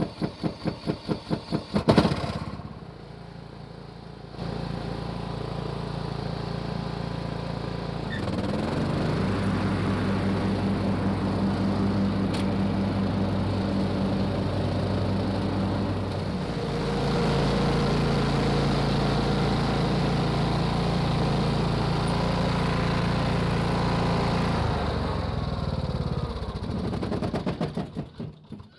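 Cub Cadet LTX1042 riding mower engine cranking on the starter at about four strokes a second, catching about two seconds in, then running steadily, getting louder in steps around four and eight seconds in. It slows and shuts off in fading pulses near the end, after a test run with the newly replaced deck belt.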